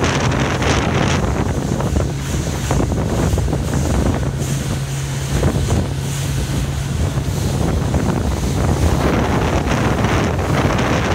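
Wind buffeting the microphone on a moving cruise boat, with water rushing past the hull and a low steady engine hum that drops away about eight seconds in.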